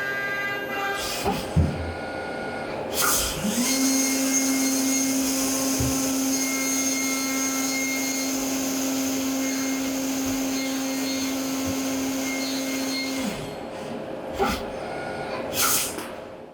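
Brother SPEEDIO U500Xd1 machining center face milling aluminium with a ø100 face mill. After a few mechanical clunks, the spindle spins up to a steady tone about three seconds in and runs with a hiss of cutting noise for about ten seconds. It then spins down, followed by two more clunks.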